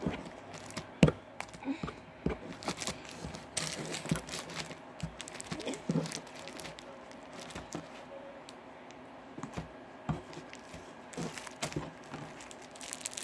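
Hands working slime and handling it in crinkly plastic: irregular sticky clicks, pops and plastic crinkling, with one sharp knock about a second in and a quieter patch in the middle.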